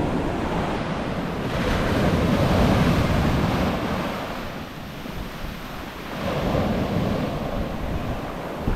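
Ocean surf breaking and washing up a black sand beach: a rushing, hissing wash that surges louder about two seconds in, eases off, then surges again after about six seconds as the next wave comes in.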